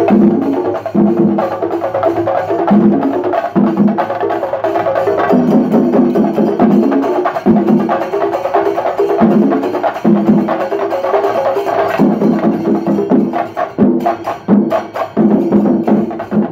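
Shinkari melam: a group of chenda drums beaten rapidly with sticks in a loud, dense, driving rhythm that pulses in repeated phrases, with elathalam hand cymbals.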